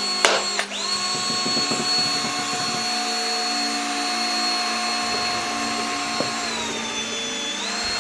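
Power drill motor running with a steady high whine, unwinding a twisted string of balloons. It stops and restarts just under a second in. Near the end its pitch dips briefly, then rises again.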